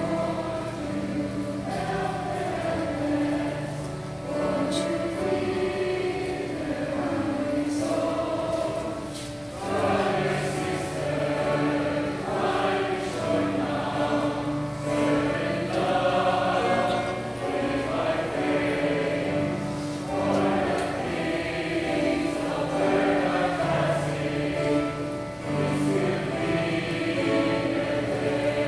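A church chancel choir singing a gospel song, many voices together in sustained phrases with brief pauses between them.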